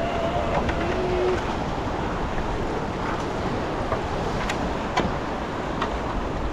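Steady rush of whitewater in a river rapid, with wind buffeting the microphone. A few sharp knocks, the loudest about five seconds in.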